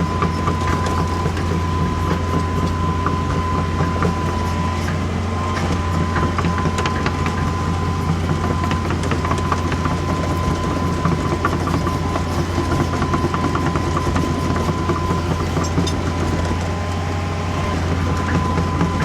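Hydraulic excavator's diesel engine running steadily, with a constant high whine over the low drone and scattered light clicks and clanks.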